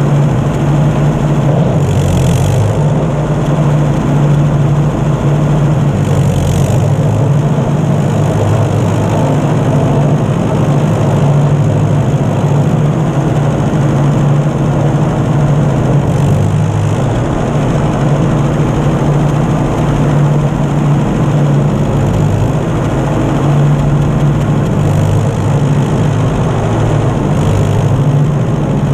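Ford 8N tractor's four-cylinder flathead gasoline engine running steadily under load while brush hogging, heard close up from the tractor. Two brief swishes of brush scraping past come about two and six seconds in.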